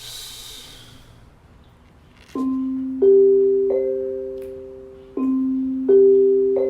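A pitched mallet percussion instrument played slowly: three notes struck in a rising figure, each left ringing on, and the figure played twice. A short hiss fades out at the start.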